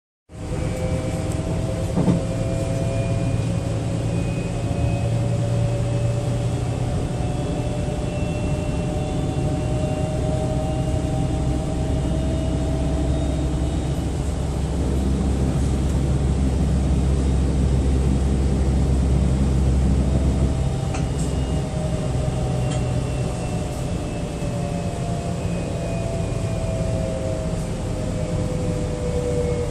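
DB class 426 electric multiple unit running, its traction drive giving the whine behind the nickname "Quietschie". Several whining tones slowly rise in pitch over a steady low rumble, and about two-thirds of the way in a new set of tones starts and slowly falls.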